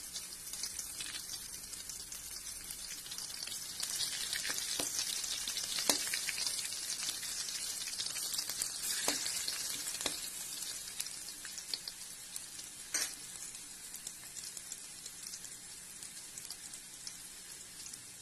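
Shallots, curry leaves and dried red chillies sizzling in hot coconut oil in a metal kadai, with a few sharp clicks as they are stirred. The sizzle dies down gradually over the last several seconds.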